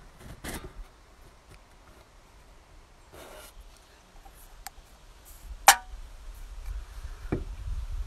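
Handling noise on the recording phone: scattered clicks, knocks and rubbing, with one sharp, loud click a little before six seconds in and a low rumble building over the last couple of seconds.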